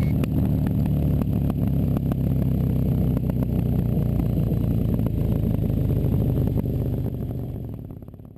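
2006 KTM 990 Super Duke's V-twin engine with an Akrapovic exhaust, running at fairly steady revs while riding. The sound fades out near the end.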